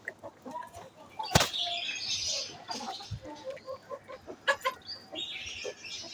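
Chickens and chicks feeding: scattered soft clucks and peeps with pecking and brief rustling, and one sharp knock about a second and a half in.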